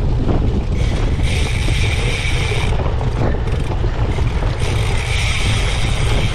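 Heavy wind rumble on the microphone of a cyclocross bike racing over the course. Two stretches of a higher hissing buzz, each about two seconds long, come in about a second in and again past four and a half seconds.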